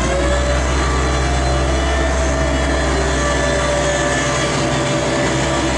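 Heavy engine of road-repair machinery running loudly and steadily, its whine holding a level pitch after a rise just before.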